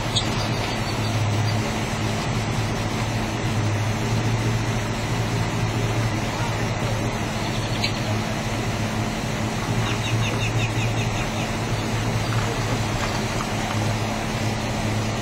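Steady low hum of an idling engine running without change, with faint bird chirps about ten seconds in.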